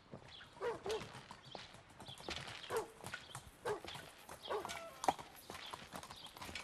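Footsteps in snow, about one step a second, each with a short crunch and creak, and one sharp click about five seconds in.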